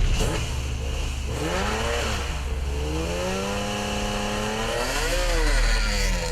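A car engine running and revving, its pitch climbing, holding steady, then rising and falling again near the end.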